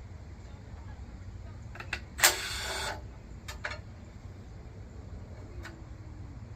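Power driver with a 3/8 socket runs in one short burst, under a second long, about two seconds in, spinning out an oil pan bolt. A few light metallic clicks of the socket and bolts follow, over a steady low hum.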